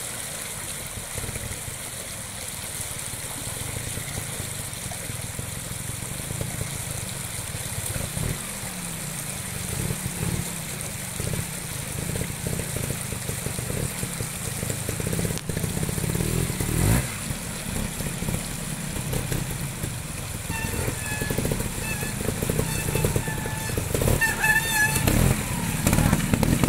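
Trials motorcycle engine running at low revs with irregular throttle blips and a brief rev burst about two-thirds of the way through, getting louder toward the end as the bike comes down into the stream. Under it, the steady rush of the shallow stream.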